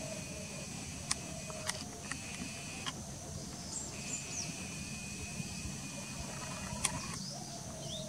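Outdoor ambience: a steady low rumble under thin, steady high tones, with a few sharp clicks and a couple of short bird chirps about halfway through.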